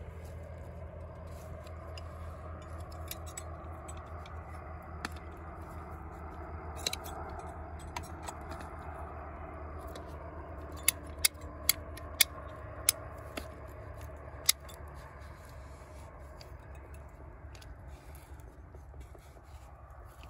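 Ratcheting PVC pipe cutter being worked on white PVC pipe: scattered sharp clicks, with a quick run of about six louder clicks partway through, over steady low background noise.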